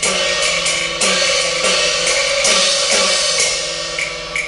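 Live Cantonese opera accompaniment ensemble playing an instrumental passage without singing. Melody instruments hold sustained notes under uneven cymbal and drum strikes.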